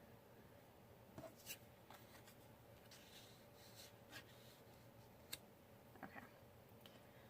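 Faint handling of scrapbook paper: a few light taps and rustles as paper pieces are moved and laid down, scattered through an otherwise very quiet stretch.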